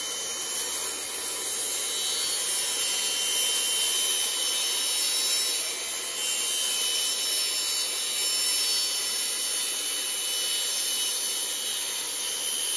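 Table saw running and cutting through a sheet of insulated plastic panel: a steady, high-pitched hiss of the blade in the plastic, with a faint steady whine of the motor.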